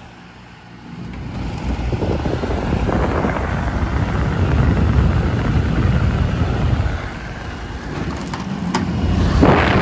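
Hisense portable air conditioner running on high fan, its airflow rushing and rumbling unevenly against the microphone, with a couple of sharp clicks near the end.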